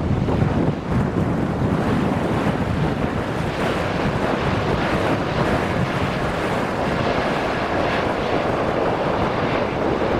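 Boeing 787 Dreamliner's jet engines running as the airliner rolls along the runway, a steady loud roar mixed with strong wind buffeting the microphone.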